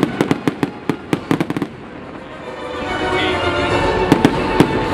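Fireworks display: a rapid string of sharp cracks and bangs through the first second and a half, then a few single bangs. From about three seconds in, a louder steady background with held tones rises under them.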